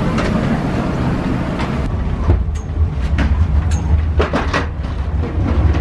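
Footsteps of a passenger walking off an airliner through the jet bridge, about two a second, over a steady low rumble. A higher hiss drops away about two seconds in.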